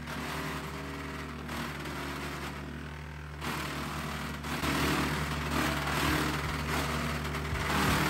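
A PTO-driven 4-inch three-point wood chipper, powered by an LS MT122 tractor's 22 hp diesel, runs steadily while chewing up green, wet evergreen limbs. The chipping noise grows louder about halfway through and stays up as the limb is pulled in.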